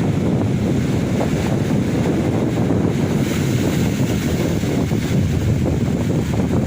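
Ocean surf washing on a beach, a steady rumble, with wind buffeting the microphone.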